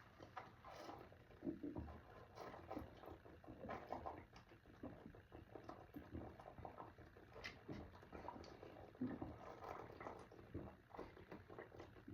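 Faint, irregular gulping and swallowing from a person chugging Pepsi Zero straight from the bottle, with small clicks and a few soft low bursts.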